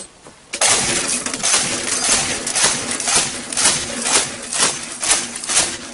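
Machine gun firing in a sustained automatic burst that starts suddenly about half a second in, with sharp, louder reports standing out about twice a second.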